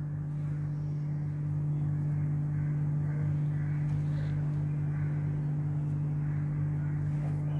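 Steady low hum with a fixed pitch, like mains electrical hum, running unbroken, with faint soft handling sounds as a thin pancake wrapper is folded by hand.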